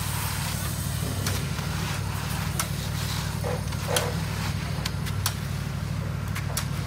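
Steady low drone of a concrete pump truck's diesel engine running, with occasional sharp clinks and scrapes of rakes and shovels working wet concrete.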